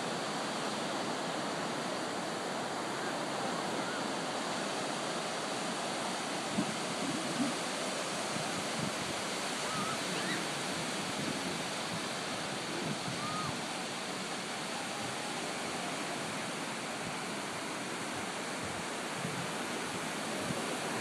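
Steady wash of ocean surf breaking on a beach, with a few faint brief sounds now and then.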